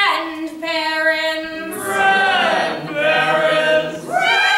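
Unaccompanied singing: a single woman's voice holds one long note, then about two seconds in a chorus of voices joins on several sustained pitches, rising in pitch near the end.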